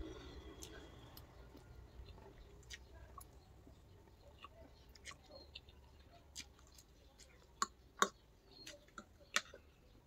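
Quiet eating of fried noodles with a metal fork: soft chewing with scattered sharp clicks, the loudest about eight seconds in.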